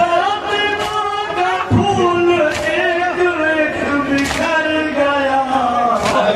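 Men's voices chanting a noha, a Muharram lament, over a microphone and loudspeaker, held notes sliding in pitch. Sharp chest-beating strikes of matam land in an even beat about every second and a half.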